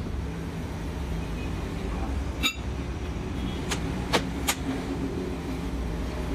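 Metal rings and parts clinking as they are handled, with about four sharp clinks in the middle, over a steady low workshop hum.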